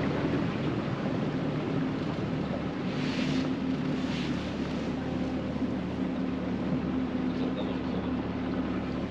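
Boat's engine running with a steady hum, under a constant wash of wind and water noise.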